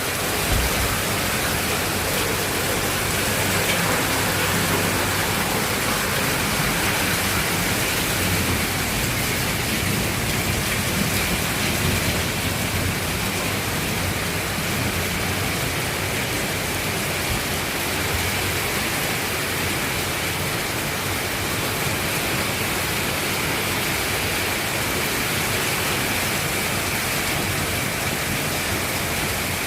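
Rain falling steadily in a thunderstorm, an even, unbroken hiss.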